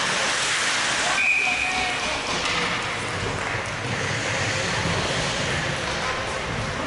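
Spectators at an ice hockey game shouting and cheering in a dense wash of crowd noise, loudest about a second in, when a short high tone sounds.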